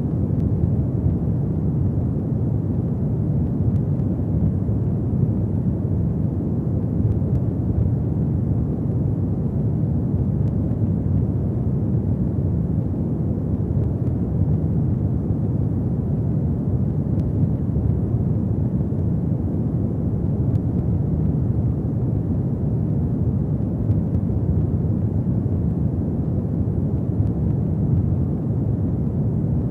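Fire burning in a fireplace, a steady low rushing sound of the flames with only faint crackles.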